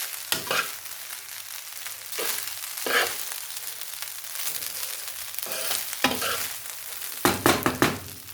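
Fried rice sizzling in a pan while being stirred: a steady frying hiss with a spoon scraping through the rice every second or two, then a quick run of several scrapes near the end.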